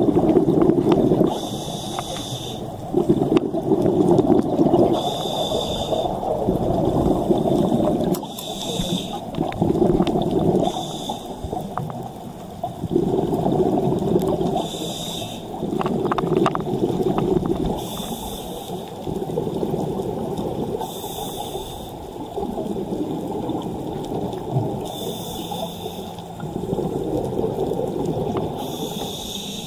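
Scuba diver breathing through a regulator underwater: a short hiss from the regulator on each inhale, then a longer low bubbling rumble of exhaled air, about one breath every three seconds.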